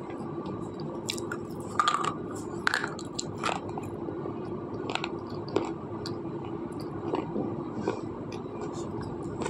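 A hard red slate pencil being bitten and chewed: sharp, brittle crunches, loudest and most frequent in the first few seconds, then thinning out to scattered softer crunches as the pieces are ground down. A steady low hum runs underneath.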